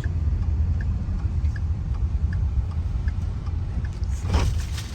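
Car in motion heard from inside the cabin: a steady low rumble of engine and road noise, with faint ticks about every three-quarters of a second. A brief louder rush comes about four seconds in.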